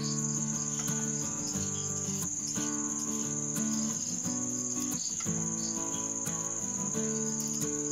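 A steady high-pitched insect drone, like crickets trilling, with background music of held notes underneath.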